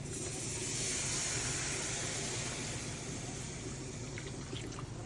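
Water poured from a cup into a hot pan of butter and flour, hissing and bubbling as the gravy starts. The hiss starts at once and slowly dies down.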